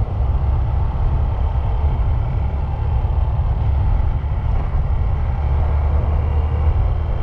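A car driving along: steady low rumble of engine and road noise.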